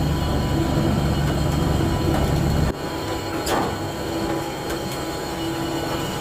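A ship's engine drones steadily under the rush of water and wind. The deep part of the drone drops away abruptly a little under halfway through, and there is one brief knock about a second later.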